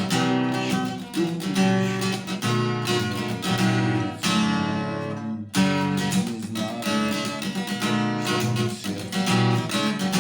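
Acoustic guitar strummed in a steady rhythmic pattern, slightly out of tune; about halfway through one chord is left ringing for about a second before a sharp strum picks the rhythm up again.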